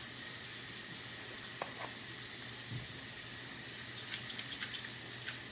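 Steady background hiss with a few faint, light clicks and scrapes from a metal portion scoop working in batter and against a muffin tin.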